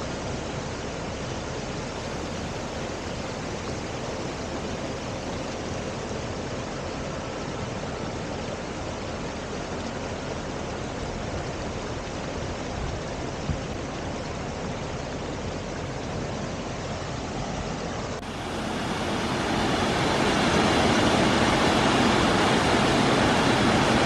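Creek water rushing steadily over small rapids, with a sudden step up to a louder, closer rush for the last several seconds.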